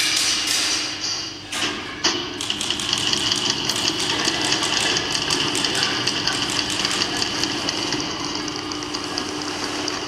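A group noise-orchestra performance: a dense wash of noise with rapid, fast tapping and clicking over a steady low hum. It thins out briefly after a second and a half, then comes back with a sharp hit at about two seconds.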